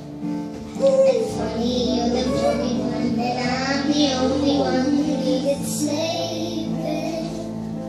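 A young girl singing a slow song over a backing track whose sustained notes hold steady beneath her wavering voice.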